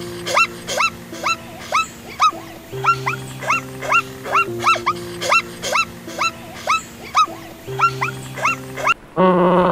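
A wild animal's short calls, each rising in pitch, repeated about twice a second in a steady series over background music of long held notes.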